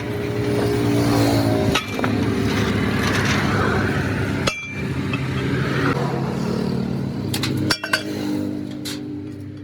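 A vehicle engine running steadily at idle, with a few sharp metallic clinks near the end.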